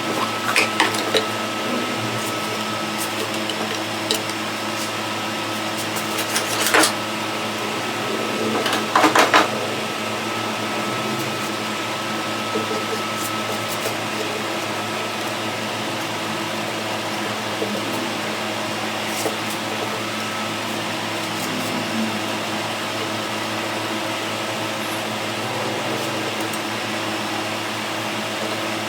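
A steady machine hum, like a small motor running, with a few short knocks or clatters near the start, about seven seconds in, and around nine seconds in.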